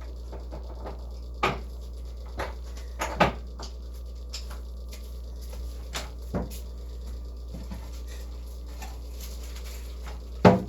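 Scattered sharp clicks and knocks of household objects being handled, irregularly spaced a second or several apart, the loudest near the end, over a steady low hum.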